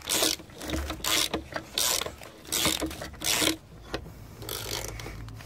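Ratchet wrench cranked in a series of about seven rasping, clicking strokes, turning the Salaroll pump's mechanism to compress its internal suction hose and build vacuum.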